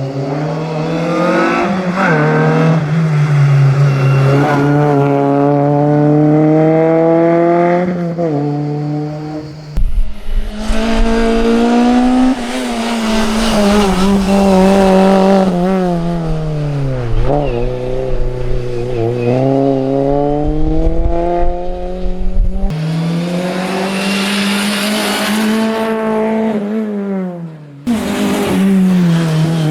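Competition car engine running hard at high revs, its note climbing and dropping as it is driven through the gears. The sound breaks off abruptly three times, between cut-together sections.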